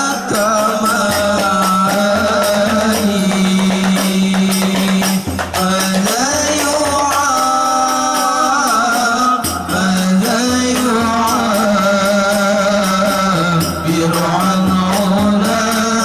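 Habsyi group of men singing an Islamic devotional song (sholawat) with a steady beat on hand-struck frame drums (terbang).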